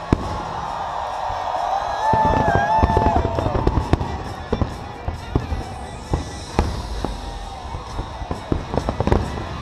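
Fireworks shells bursting in a rapid, irregular string of sharp bangs and crackles, with one sharp bang right at the start and the densest, loudest run about two to four seconds in.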